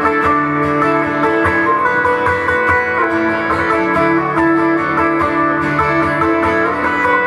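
Instrumental break in a live song: an acoustic guitar strumming over long held backing notes, with no singing.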